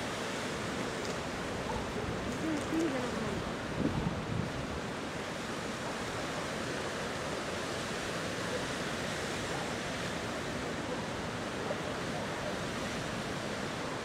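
Steady rushing noise of flowing floodwater mixed with wind buffeting the microphone.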